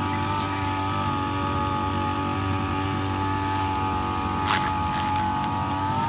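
Small two-stroke engine of a backpack power unit running at a steady speed, with one brief sharp tick about four and a half seconds in.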